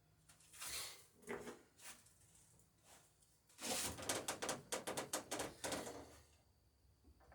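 A hammer tapping quickly, about seven light strikes a second for nearly three seconds in the second half, peening over a rivet in wooden boat planking. A few softer scrapes and knocks come before it.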